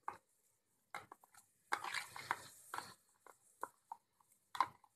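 A spoon scraping and knocking thick onion-coriander paste out of a plastic container into a pressure cooker, as a series of short scrapes and taps with a busier patch about two seconds in.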